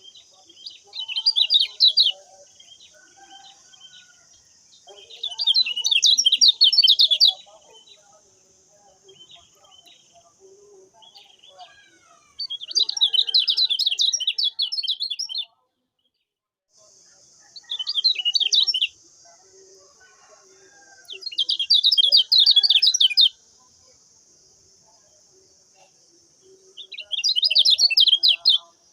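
Kecial kuning white-eye singing in six bursts of rapid, chattering high notes, each one to two seconds long, over a steady high hiss. The sound drops out to silence for a moment about halfway through.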